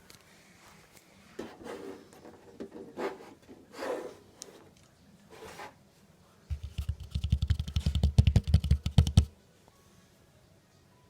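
A few scrapes and knocks, then a Samsung PS-WBD1200 subwoofer puts out a loud burst of deep, rapidly pulsing bass with clicking on top for about three seconds. The bass cuts off suddenly.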